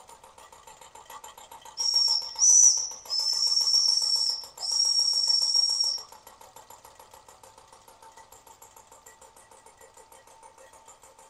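Weeden No. 670 electric steam engine running its belt-driven toy accessories with a fast, steady light clatter. About two seconds in, its steam whistle blows four high toots, the first two short and the last two longer.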